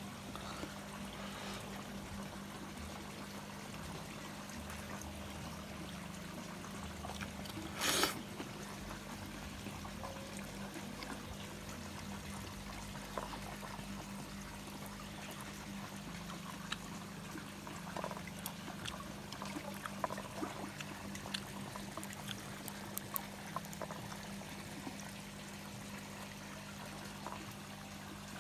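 Water trickling and pouring steadily into a fish pond, with a steady low hum under it. A short, loud rush of noise comes about eight seconds in, and faint light clicks come later.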